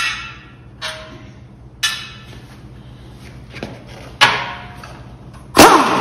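Air impact wrench run in four short bursts to loosen bolts on steel brackets, each burst starting sharply and trailing off, the loudest near the end.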